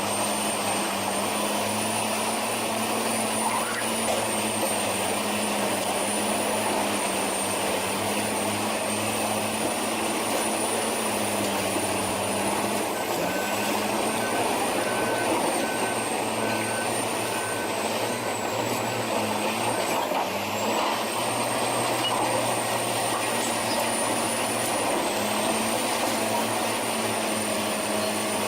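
Heavy diesel construction machine running steadily with a high whine over the engine note. The pitch sags briefly several times as the machine takes load, then recovers. A faint intermittent beeping sounds for a few seconds midway.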